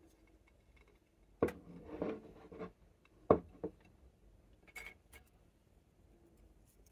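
Small crunchy animal biscuits being handled on a ceramic plate: a sharp click about a second and a half in with a short rustle after it, a louder click near the middle, and two lighter clicks later on.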